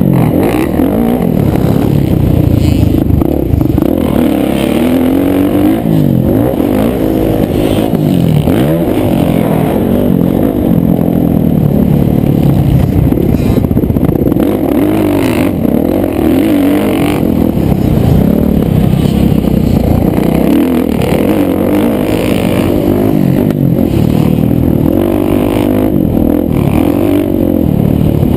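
Kawasaki motocross bike's engine heard through a helmet-mounted camera, revving up and falling back over and over as the throttle is opened and rolled off, with rattling clatter mixed in.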